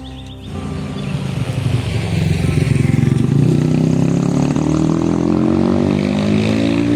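A motor vehicle engine running loudly, its pitch rising steadily over the last few seconds as it accelerates, then cutting off abruptly.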